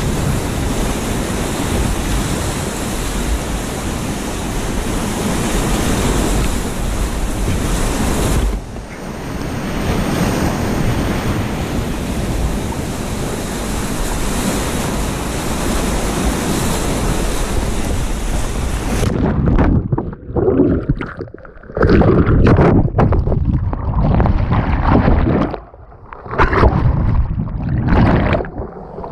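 Whitewater rapids rushing steadily around a kayak, heard close up. About two-thirds of the way through, the sound suddenly turns muffled and dull and comes and goes as the camera goes under the churning water.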